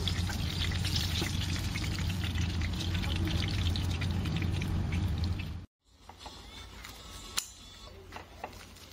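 Hot oil sizzling and crackling steadily in a frying pan of chicken pieces, over a steady low hum; the sizzle cuts off abruptly a little past halfway, leaving a quieter stretch with a few sharp clicks.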